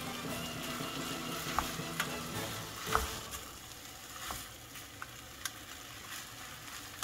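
Food sizzling in a frying pan as it is stirred, with a steady hiss and several sharp taps of a utensil against the pan, the loudest about three seconds in.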